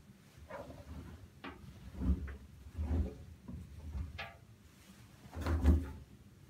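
Laundry being pushed by hand into a stainless steel washing machine drum: a series of dull thuds and fabric rustles as the wash is packed in and the drum knocks, the loudest near the end.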